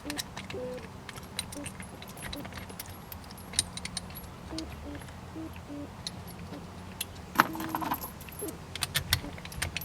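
Small steel bolts, flat washers and lock washers clinking and clicking as they are handled and started by hand into the shifter bracket, in scattered light metallic ticks with a busier run of clinks near the end.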